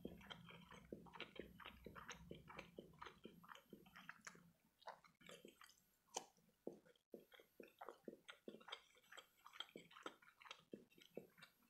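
Faint chewing of soft imitation crab sticks (surimi), with many small wet mouth clicks at an irregular pace.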